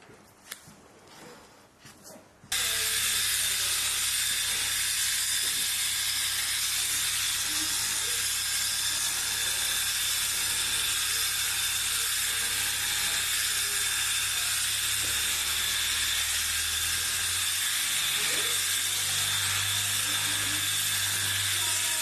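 A few faint snips of hand scissors cutting matted wool. About two and a half seconds in, an electric sheep-shearing handpiece starts up and runs steadily, a loud hiss over a low hum, as it cuts through the heavy fleece; the hum drops slightly in pitch partway through.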